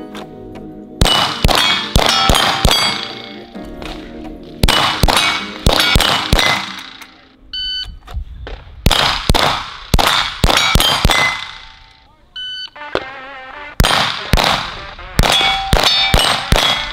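Strings of pistol shots, each hit followed by the clang and ring of steel target plates. A shot timer's short beep starts a new string a few times, at the start, about 7.5 seconds in and about 12.5 seconds in.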